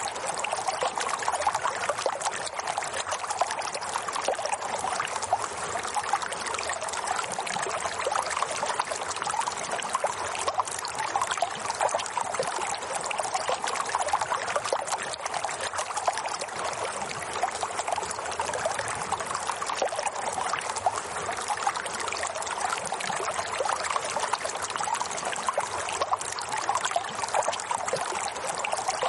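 Steady running water, a continuous trickling and splashing like a small stream, unchanging throughout.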